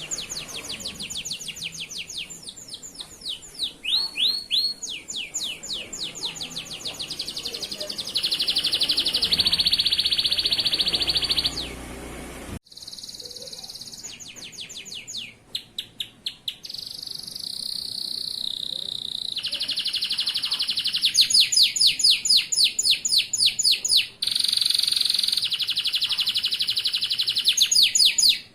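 Male canary singing a long continuous song: fast trills of rapidly repeated notes alternating with sustained buzzy rolls, the phrase changing every few seconds, with a sudden break about halfway through.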